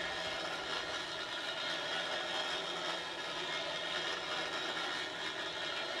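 Rope-cycling bicycle's wheels rolling along its overhead rope during a ride: a steady whirring rumble with a faint mechanical whine.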